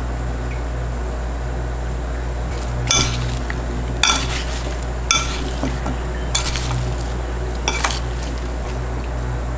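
Dishes and utensils clinking: five sharp ringing knocks about a second apart, over a steady low hum.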